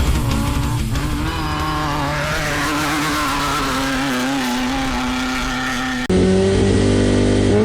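An off-road race vehicle's engine running at fairly steady revs, its pitch wavering and sagging slightly. About six seconds in, the sound cuts abruptly to an engine idling with a steady hum.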